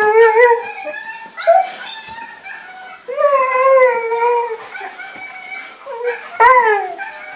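Siberian husky howling in several wavering, drawn-out calls, the longest lasting about a second and a half a few seconds in, and a short call falling in pitch near the end: the pining howl of a male dog missing a female.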